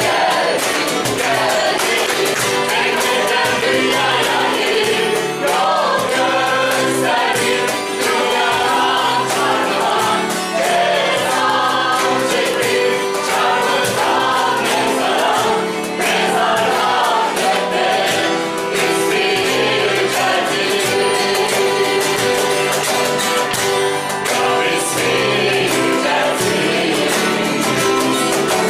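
A worship band performing: a group of mostly women's voices singing together, over acoustic guitar strumming and cajón played with the hands in a steady beat.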